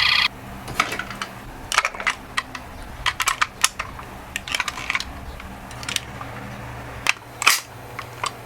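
A toy ambulance's electronic siren cuts off suddenly just after the start. Then come scattered sharp clicks and taps from small toy minicars being handled, over a faint steady low hum.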